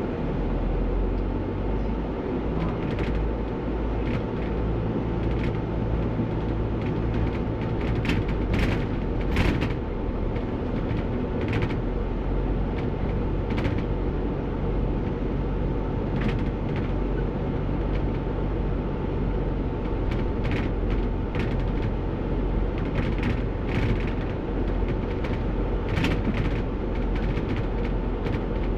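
Inside a moving single-deck bus: the diesel engine and road noise run steadily, with a constant whine and irregular sharp knocks and rattles from the bus body, several clustered around eight to ten seconds in and again in the second half.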